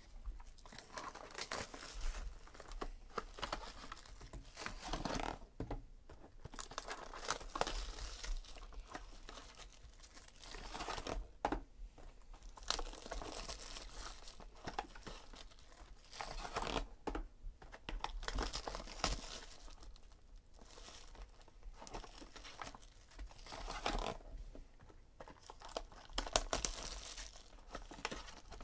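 Clear plastic shrink-wrap crinkling and tearing as it is pulled off a box of trading cards by hand, in irregular rustling bursts.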